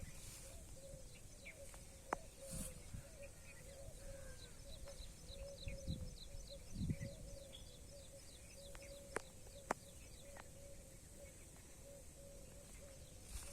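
Faint outdoor bird chirping: many short, quick chirps repeating steadily, over a low repeating note that runs throughout. A few sharp clicks and soft low thuds come and go.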